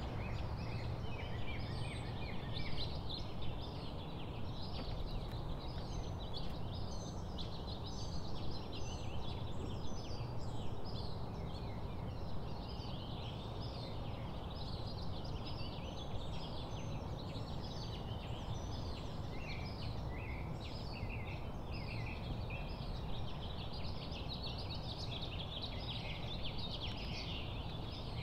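Many small birds chirping and twittering continuously, over a steady low rumble.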